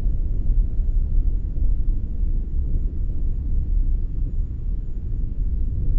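Deep, steady rumble of a powder avalanche cascading down a mountainside, with no distinct impacts.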